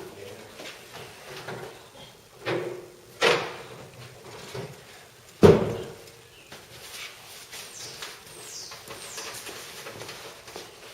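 Knocks and scrapes of a heavy heat exchanger being handled and moved into place, two thuds a little under a second apart, then a louder bang a couple of seconds later.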